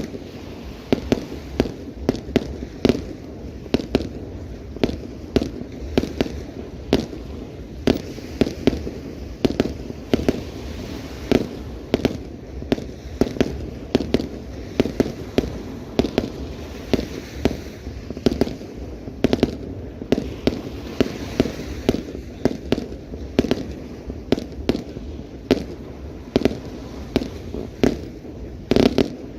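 Fireworks display: a continuous run of aerial shells bursting, several sharp bangs a second with crackle between them.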